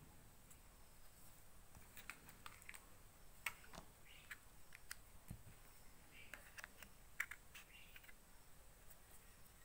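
Faint, scattered clicks and taps of plastic parts being handled: a selfie stick and its Bluetooth remote being turned over and fitted in the hands.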